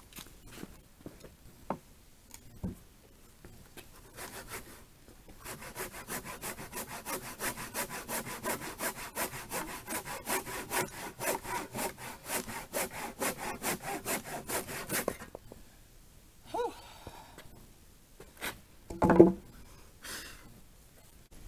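Hand saw cutting across a 6x6 wooden timber in quick, even strokes, about four a second, for some ten seconds before stopping abruptly. A couple of short knocks follow, the loudest near the end.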